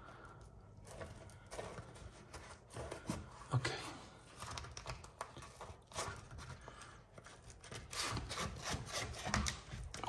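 Textured wallpaper rustling and rubbing against the wall as a hand lifts and folds back a cut flap: irregular crinkles and scrapes, busiest in the last couple of seconds.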